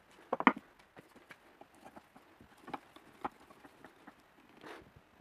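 Flat-blade screwdriver clicking and scraping against a dome-headed rivet and the metal column of a swivel stool: a quick cluster of sharp taps about half a second in, single clicks in the middle, and a softer scrape near the end.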